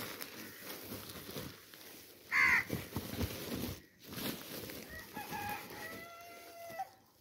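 A rooster crowing near the end: a drawn-out cock-a-doodle-doo whose last note is held. It is preceded about two and a half seconds in by a short, loud call from a chicken. Underneath is the soft rustle of chopped dry fodder being stirred by hand.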